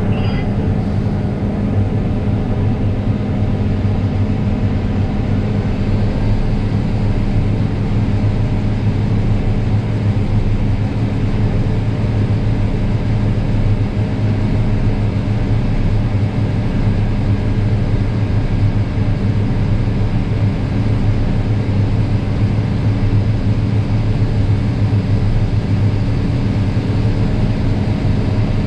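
Combine harvester running steadily while harvesting, a low, even drone that holds the same level and pitch throughout.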